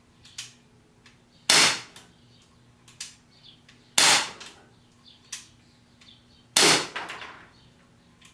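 Umarex Glock 19 CO2 BB pistol firing three shots about two and a half seconds apart, each a sharp pop; the third has a longer fading tail. A faint click comes about a second before each shot.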